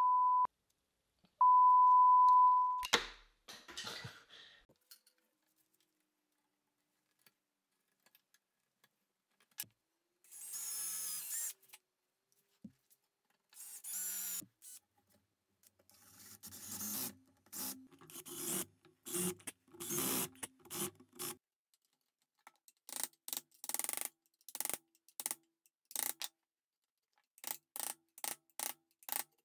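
Two steady high beeps at the start. Then a power drill boring into a wooden spear handle: longer whirring runs, followed later by a series of short quick pulses of the drill.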